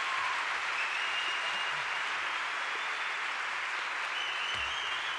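Theatre audience applauding steadily, with a couple of high whistles about a second in and near the end.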